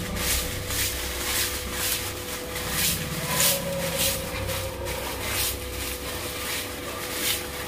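Crinkly plastic packet rustling in short crackles, about one every half second, as it is handled and opened, over a steady low hum.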